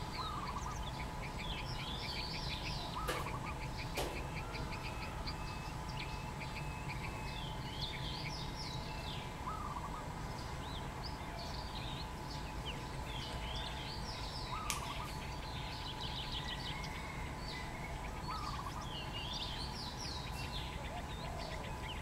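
Wild birds chirping and twittering in the trees, many short high calls overlapping, with a short lower note repeating every few seconds. A steady faint tone and a low background rumble run underneath, and a few sharp clicks come about three and four seconds in and again past the middle.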